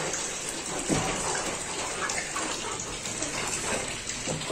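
Splashing and wet rubbing as hands scrub the loosened hair off a goat carcass scalded with hot water, an even watery patter with a few soft slaps.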